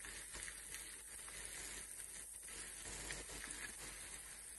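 Faint, steady sizzling of a chopped herb, onion and spice mixture frying in a pan.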